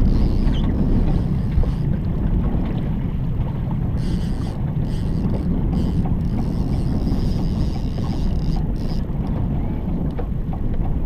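Outboard motor running steadily at trolling speed, a low even rumble, with wind buffeting the microphone.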